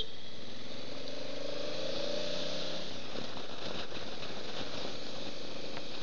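Motorcycle engine running under way, with steady wind rush on the microphone. The engine note rises gently between about one and three seconds in as the bike accelerates, then holds steady.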